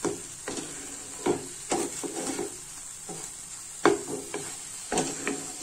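Spatula stirring and scraping a capsicum, potato and pea stir-fry in a kadai, with irregular knocks against the pan over a steady light sizzle.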